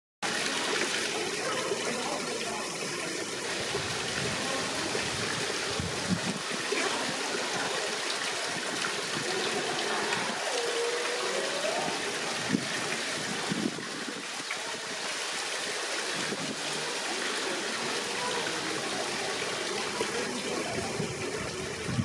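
Steady trickling of running water from a small stream, with a few faint knocks.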